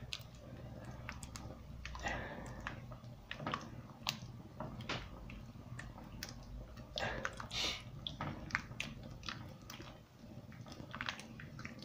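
Thick risotto with fava beans being stirred with a wooden spoon in a terracotta pot as it simmers: soft, irregular squelching with scattered small clicks.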